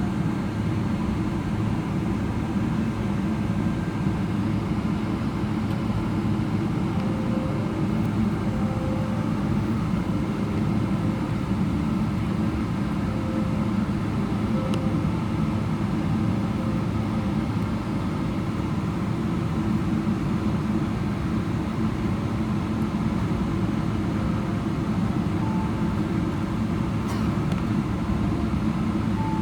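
Steady cabin rumble of a Boeing 777-300ER taxiing on the ground: its GE90 engines at low taxi power together with the cabin air, heard from inside the cabin.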